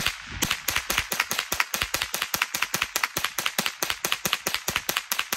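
Winchester Wildcat semi-automatic .22LR rifle, unsuppressed, firing a rapid string of about 25 shots, roughly five a second, with Fiocchi 40-grain copper-plated round-nose ammunition. The action cycles every round without a malfunction until the magazine runs empty near the end.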